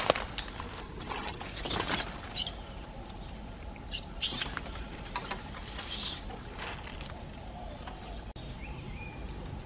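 Dry leaves and twigs rustling and crackling in a string of short, irregular bursts, the sound of movement through dry brush and leaf litter.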